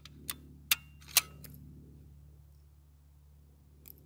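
Four sharp metallic clicks in the first second, about half a second apart, one ringing briefly, from handling the bolt-action rifle. A faint steady low hum follows.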